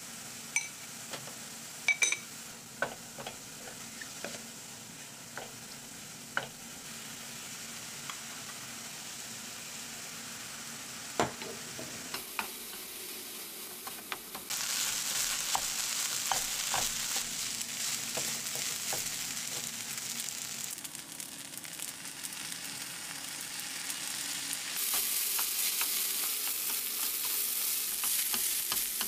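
Ground pork and green onion sizzling in a frying pan, with a wooden spatula tapping and scraping against the pan. About halfway through the sizzle turns much louder once cooked rice is in the pan and being stir-fried into fried rice.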